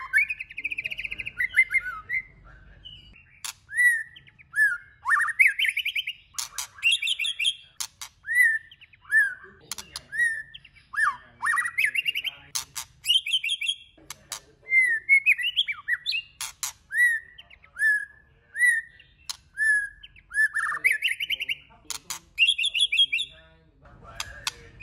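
Male white-rumped shama singing a varied song: clear whistled notes sliding up and down, short repeated phrases and sharp clicking notes, delivered in quick phrases with brief pauses between them.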